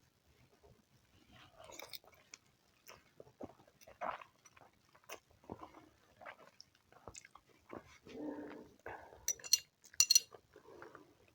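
Close-miked eating sounds: chewing and mouth smacks broken by short clicks, with a cluster of sharp clicks near the end.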